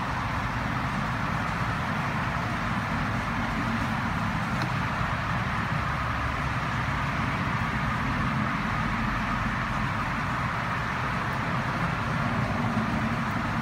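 Steady rushing background noise, even throughout, with no distinct knocks or clicks.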